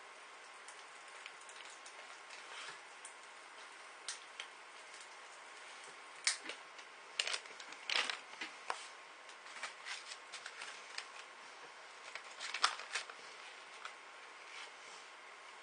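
Popping candy crackling inside a closed mouth: irregular sharp pops and clicks, with a handful of louder pops about six to eight seconds in and another about twelve seconds in.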